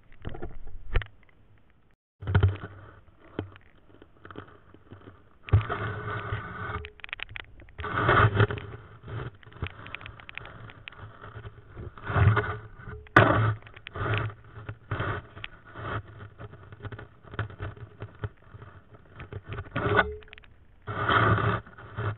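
Muffled bumps, scrapes and water sloshing picked up by a camera held underwater in shallow ditch water, coming in irregular bursts of a second or two, with one sharp knock about thirteen seconds in.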